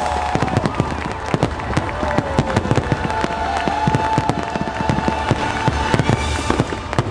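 Fireworks bursting in quick succession, many sharp bangs and crackles packed close together, over loud show music with held tones.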